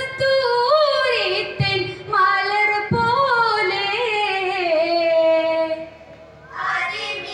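Boys singing a Vattappattu (Mappila) song: long, wavering, ornamented melodic phrases, with a short break about six seconds in before the next phrase starts. Two dull thumps sound about one and a half and three seconds in.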